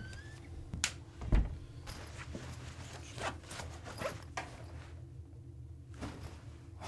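A low steady hum under scattered small clicks and rustles, with a sharp click and then a heavy thump within the first second and a half.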